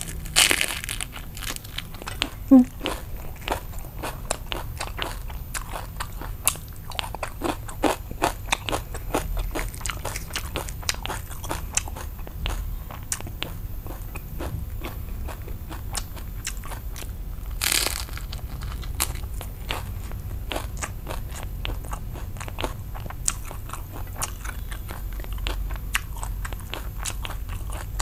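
Close-up mouth sounds of biting and chewing a rice-paper roll of grilled pork sausage (nem nướng), fresh herbs, pickled vegetables and a deep-fried crispy rice-paper stick: steady wet chewing with many small crunches. There is a loud crunchy bite about half a second in and another a little past halfway.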